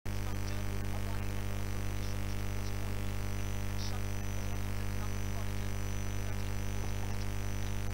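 Steady electrical mains hum: a low, constant buzz with a ladder of faint higher tones above it.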